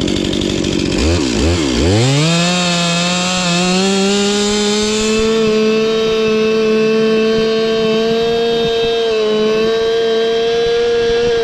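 Two-stroke chainsaw engine, its pitch dropping sharply twice about a second in, then climbing to high revs and running steadily, milling a log by hand.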